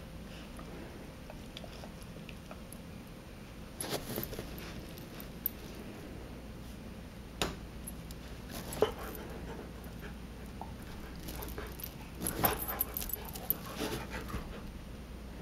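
A shepherd dog handling a rubber Kong toy on a fabric couch: scattered clicks and rustles with the jingle of its chain collar, busiest near the end as it picks the toy up in its mouth.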